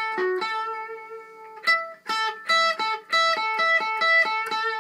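Electric guitar playing a single-note lead phrase: a few held notes with a quick step down in pitch at the start, then a fast, even run of picked notes moving between a few pitches, about five notes a second.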